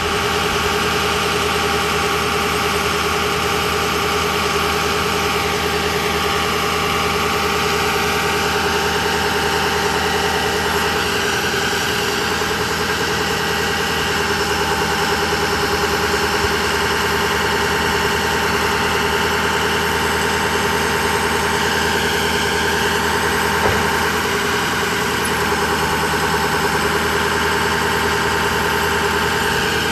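Ford F550 Super Duty's 6.0-litre V8 turbo diesel running steadily at idle while the truck's hydraulic aerial boom lifts the bucket.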